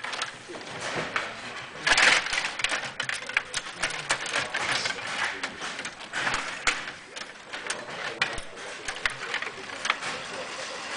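Stiga Play Off table hockey game in play: rapid clicking and rattling of the metal control rods being pushed and spun, with louder clacks of the puck and plastic players against each other and the rink, the loudest about two seconds in.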